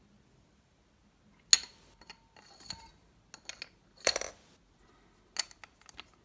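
Two 18650 lithium-ion cells being dropped into the aluminium tube of a Nitecore SRT9 flashlight and the tail cap being handled, making a series of sharp metallic clicks and clinks. The loudest is a single sharp click about one and a half seconds in, with a longer clatter about four seconds in.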